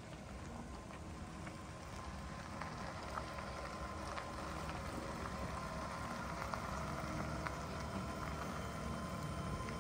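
Ford F-150 pickup towing a small travel trailer creeping in at low speed, a low engine and tyre hum growing slightly louder as it comes closer, with light hail pattering as a steady scatter of small ticks.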